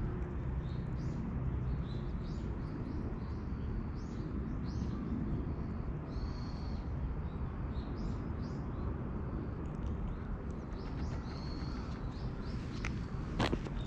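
Small birds calling in short, high, repeated notes over a steady low rumble, with a few sharp clicks near the end.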